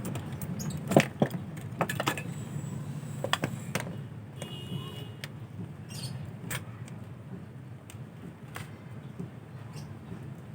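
Sharp clicks and taps of hands handling a rechargeable LED lamp while plugging it in, loudest about a second in, over a steady low hum.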